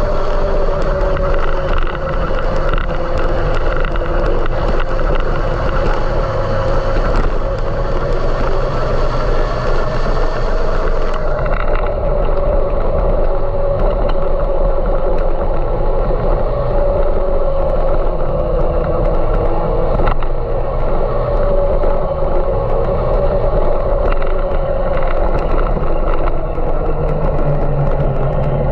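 A vehicle running steadily: an even, loud drone with a hum that slowly wavers in pitch.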